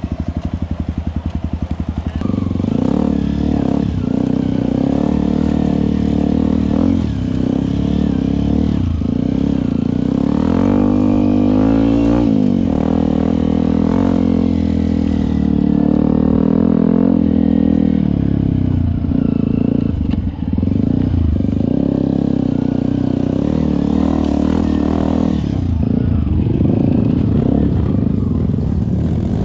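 Single-cylinder four-stroke engine of a Yamaha WR155R dual-sport motorcycle. It idles with a slow, even putt for about two seconds, then pulls under load, its pitch rising and falling as the throttle opens and closes, with one strong rev about a third of the way in.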